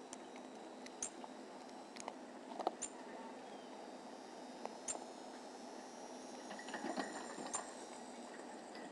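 Pygmy marmosets moving against a small camera in a plastic treat station: fur brushing over the microphone and little claw taps and scratches on plastic, with a few short, very high squeaks every second or two.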